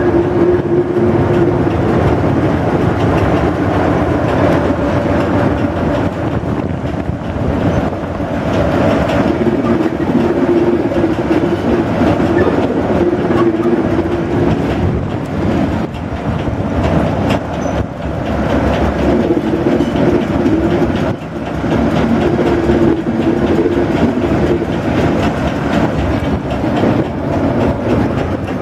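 Ruston diesel shunting locomotive hauling a train, its engine droning steadily over the rattle and clack of wheels on the rails, heard close from the carriage behind it.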